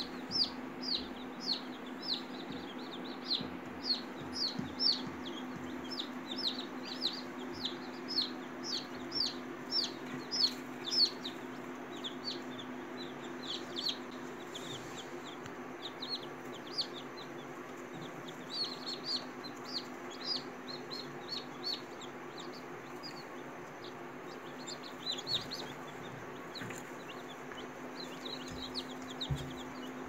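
Newly hatched chicks peeping: short, high calls that fall in pitch, several a second. They come thick for the first twelve seconds or so, then in shorter bursts. A steady low hum runs underneath.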